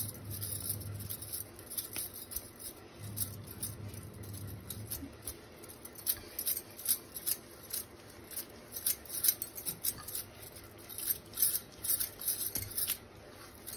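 Bangles on the wrists clicking and jingling in quick, irregular ticks as hands press a ball of dough and roll it out with a wooden rolling pin on a silicone mat.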